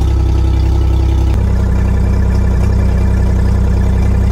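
Mercury Optimax 75 hp three-cylinder two-stroke direct-injection outboard idling steadily on a flushing hookup, with water from the leg splashing into a bucket. The engine is warming on fresh water until its thermostat opens. Its sound shifts abruptly about a second and a half in.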